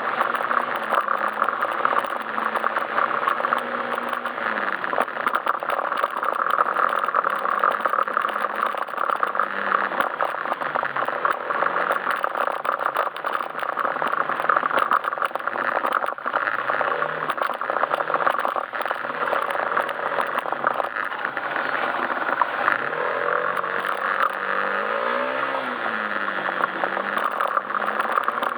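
Yamaha Majesty S scooter's single-cylinder engine running under way, its note rising and falling again and again as the throttle is opened and closed, under a steady rush of wind and road noise.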